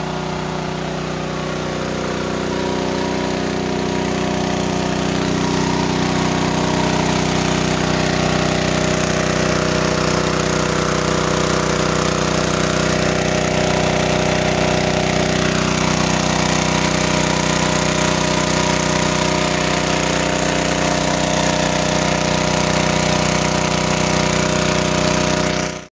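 Small petrol-engine water pump running steadily at constant speed, draining a pond.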